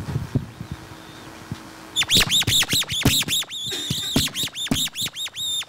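A chair squeaking in a fast, repeated run, about three high-pitched squeaks a second, each dipping and rising in pitch, starting about two seconds in. A few soft knocks come before it.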